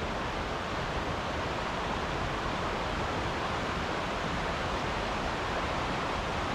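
Steady rush of a mountain stream: an even, unbroken rushing noise of flowing water.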